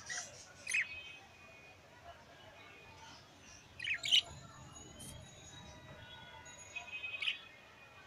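Budgerigars chirping: three loud, sharp chirps, about a second in, around four seconds and near the end, over soft, continuous warbling chatter.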